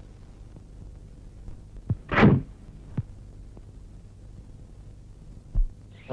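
Dubbed film fight sound effects over a low hum: a thud, then a loud falling whoosh about two seconds in, a few lighter knocks, a deep thump, and another loud whoosh right at the end.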